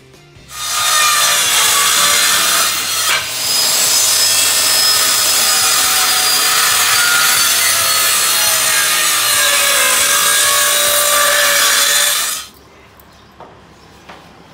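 Electric power saw cutting through a pine board. It runs for about twelve seconds, dips briefly about three seconds in, then stops suddenly.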